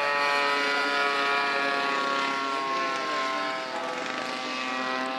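Radio-controlled model plane's small two-stroke petrol engine running in flight overhead, its pitch dipping slightly about halfway through and rising again as the plane passes and banks.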